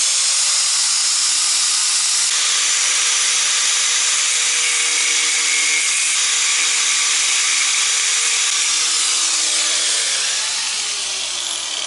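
Electric angle grinder running at full speed, grinding down the rivet heads on a motorcycle chain link so the pins can be pushed out. About ten seconds in it comes off the work and its whine falls as the disc spins down.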